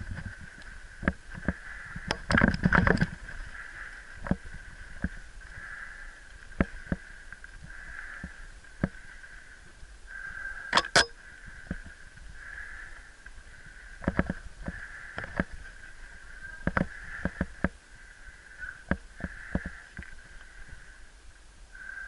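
Mountain bike rolling fast down a dirt forest trail: frequent knocks and rattles as it bounces over roots and bumps, with a dense clatter about two seconds in and a sharp crack near the middle. A steady high tone from the bike swells and fades throughout.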